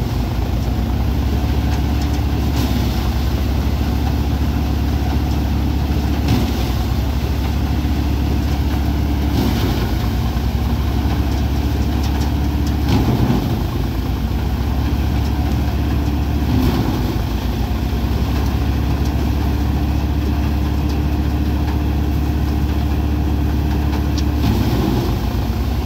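Tractor-driven Dasmesh paddy thresher running steadily: the engine drone and the spinning threshing drum, with the note briefly shifting every few seconds as bundles of paddy are fed in.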